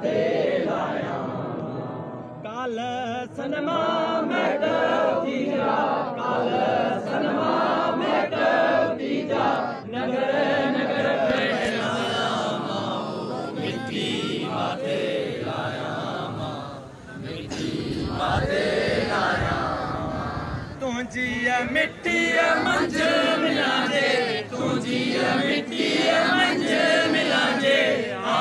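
A crowd of rally marchers chanting slogans together, many voices at once, with a brief lull a little past halfway.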